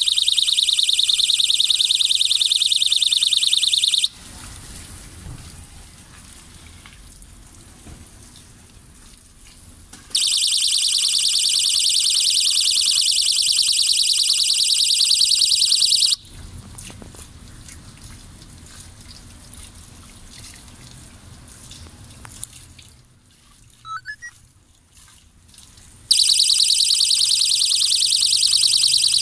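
Solar ultrasonic animal repeller sounding its deterrent: a loud, high-pitched, rapidly pulsing electronic tone. It comes in three bursts of about four to six seconds, with quiet gaps between.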